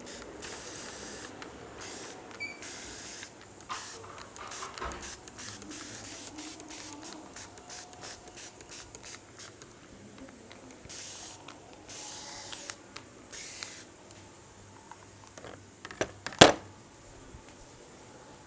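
Hands rubbing and kneading hair and scalp in a head massage: a soft rustling hiss in short strokes, with one sharp, loud impact about sixteen and a half seconds in.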